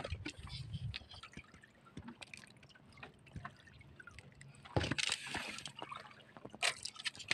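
Water slopping and dripping at a small boat, with two brief splashy swells about five and nearly seven seconds in, and light clicks from hands working a fishing hook and line.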